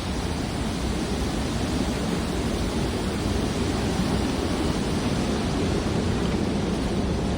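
Waterfall pouring: a steady, deep rush of falling water that does not change.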